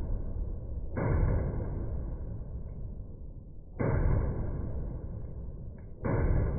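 Three pistol shots from a Glock fitted with a Killer Innovations Ramjet compensator, a couple of seconds apart, each sharp at the start and dying away slowly.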